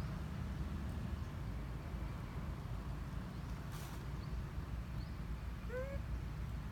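Outdoor ambience with a steady low rumble, a single click just under four seconds in, and one short rising animal call about six seconds in.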